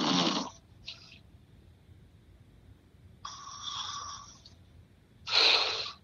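A sleeping man snoring in separate breaths. A rattling snore fades out just after the start, a short breath comes about a second in, a longer snore runs from about three to four and a half seconds, and the loudest, short snore comes near the end.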